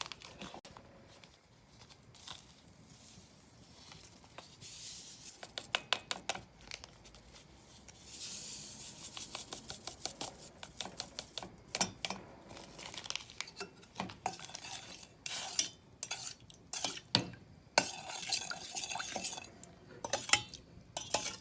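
A spoon stirring lemon syrup in a saucepan, scraping and clinking against the pan in quick repeated strokes, with louder knocks here and there.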